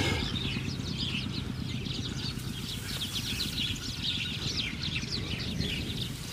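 Small birds chirping rapidly and continuously, over a steady low rumble.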